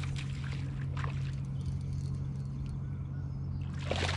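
A boat motor's steady low hum, with a few short splashes or handling noises about a second in and near the end.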